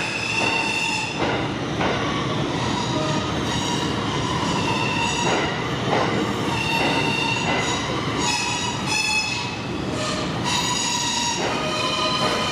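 New York City subway train running through the station, its steel wheels squealing on the rails with several high-pitched tones that come and go, over a rumble and irregular clicks from the wheels crossing rail joints.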